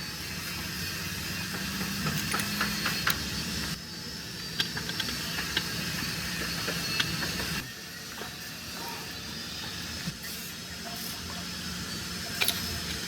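Small motorcycle engine running steadily, with scattered sharp metallic clicks over it.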